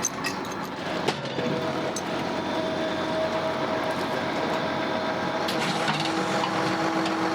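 Machinery engine running steadily with a whining tone while a grain auger is moved into position at a bin, with a sharp clank about a second in and a lower steady tone joining about six seconds in.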